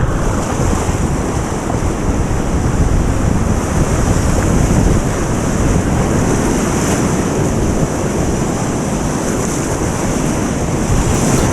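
Loud, steady rush of fast whitewater rapids close to the microphone, with wind and splash buffeting the mic.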